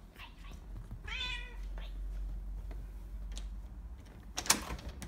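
Bengal cat giving one meow about a second in, lasting about half a second. About four and a half seconds in comes a sharp, loud click from the handle of the glass balcony door.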